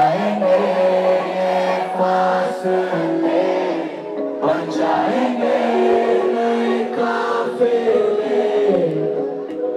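Live concert music played loud over a PA from a DJ's track, with voices singing the melody in long held notes.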